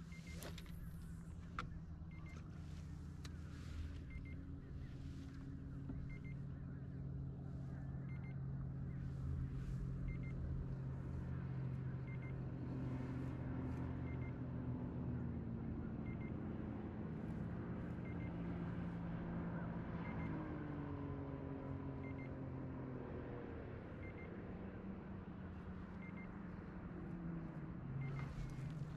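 Kayak's drive motor running steadily while under way. Its low hum shifts in pitch now and then and dips noticeably about twenty seconds in, with a faint tick about every two seconds.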